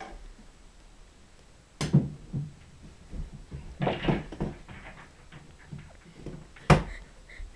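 Knocks of a pool trick shot: a sharp clack about two seconds in, a cluster of softer knocks and rattles around the middle, and a loud clack near the end.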